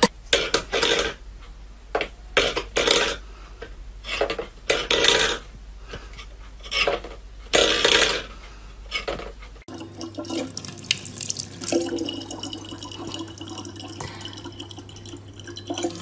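A steel bowl being knocked and scraped by a cat on a wooden floor: a string of short, irregular clattering bursts. About two-thirds of the way through, this gives way to a faucet running in a thin stream.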